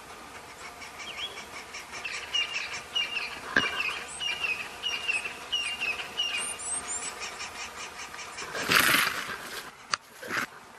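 Birds chirping: a short call repeated about twice a second, with higher twittering around six to seven seconds in. Near nine seconds a louder brief rush of noise stands out, with a click or two around it.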